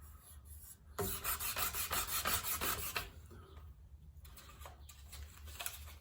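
Hand sanding with a sanding block: sandpaper scraping back and forth over a car part. The strokes are loudest and quickest for about two seconds starting a second in, then go on lighter.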